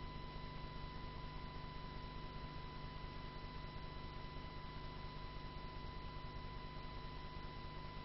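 Steady electrical hum with a thin, constant high whine over faint hiss, unchanging throughout; no distinct event is heard.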